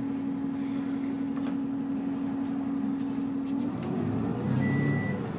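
Steady low drone of a bus cabin, then about four seconds in a man's snore, low and ragged, with a short high beep near the end.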